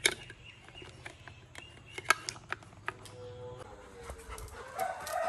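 Labrador puppy whining, its pitched whine building in the second half and loudest near the end. Several sharp clicks and knocks come from the hard plastic toy being handled.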